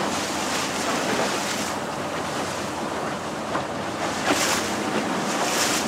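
Small open boat under way, with water rushing and splashing along the hull and wind buffeting the microphone. There are brief stronger gusts of hiss near the end.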